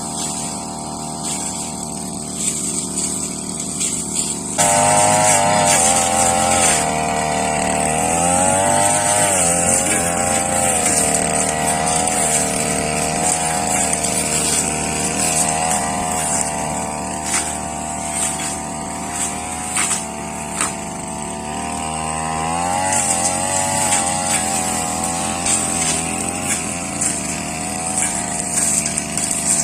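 Two-stroke brush cutter engine running, throttled up to high revs about four or five seconds in, its pitch wavering up and down under the changing load of cutting. It eases back to lower revs about two thirds of the way through, then speeds up again.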